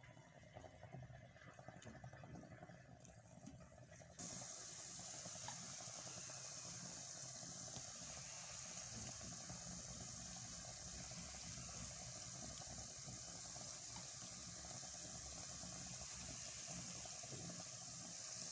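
Almond briouats deep-frying in hot oil: a faint sizzle that jumps suddenly about four seconds in to a steady, even hiss of oil bubbling around the pastries.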